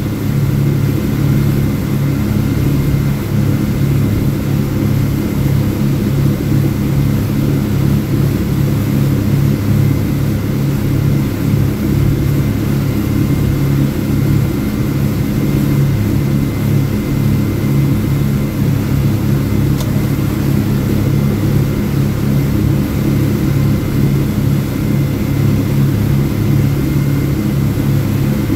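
Speedboat's outboard motors running steadily at cruising speed, a loud, even drone heard from the helm, with a faint steady high whine over it.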